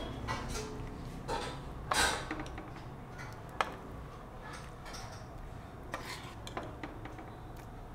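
Serving utensil scraping and clinking against a cooking pot and serving dish as chicken curry is ladled out. There are a few irregular clinks and scrapes, the loudest about two seconds in, and a sharp click a little later.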